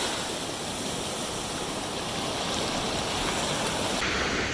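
Ocean surf washing onto the beach: a steady rushing noise of breaking and running waves, which changes abruptly near the end.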